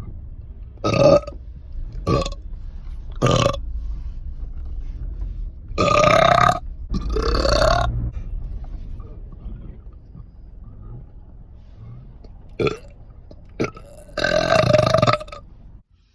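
A person burping over and over. There are three short burps in the first few seconds, then two long, drawn-out ones about six to eight seconds in, then two short ones and a long burp near the end.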